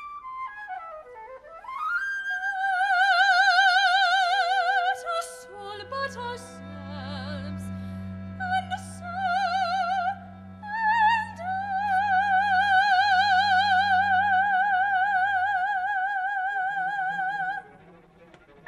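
Soprano singing long held high notes with a wide operatic vibrato, swooping up into the first one, with a small chamber ensemble accompanying; a low held note sounds beneath her through the middle. Her voice stops shortly before the end, leaving the ensemble playing softly.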